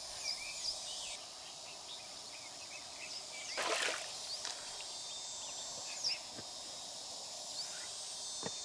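Outdoor ambience: a steady hiss with many short, quick bird chirps. A brief noisy rustle or scrape comes about three and a half seconds in, and a couple of light clicks follow later.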